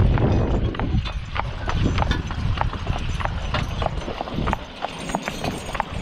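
Hooves of a team of two draft horses walking on asphalt, clip-clopping in a quick, uneven run of sharp strikes over a steady low rumble.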